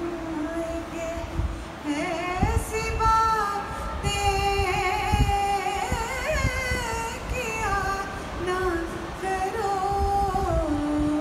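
A woman singing unaccompanied into a microphone, a slow melody of long held notes with a wavering vibrato.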